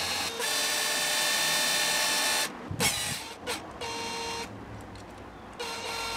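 Cordless drill-driver whirring as it winds an intonation screw through a spring into a brass Telecaster bridge saddle. It runs once for about two and a half seconds, then comes back in shorter bursts.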